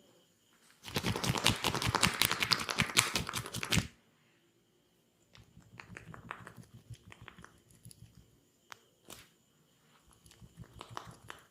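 Massage on the body: a loud, rapid run of taps or slaps lasting about three seconds, then quieter, scattered taps and rubbing.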